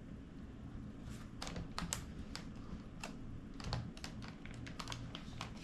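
Scattered light plastic clicks and taps as a Sony Handycam CCD-TRV41 Video8 camcorder's cassette compartment door is worked open and pushed shut; the door is a little loose.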